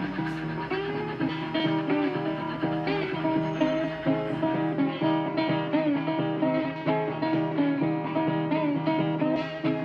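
Background music: acoustic blues guitar playing an instrumental passage, picked notes with some sliding bends.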